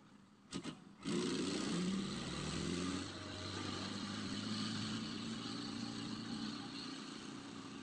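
Heavy diesel engine coming up under load suddenly about a second in, after two short knocks, then running steadily and slowly fading.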